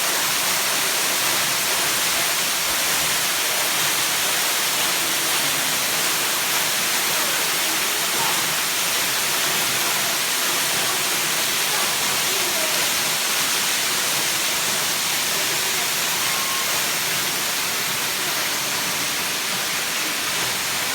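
Waterfall pouring steadily: a dense, even rush of falling water, strongest in the high hiss.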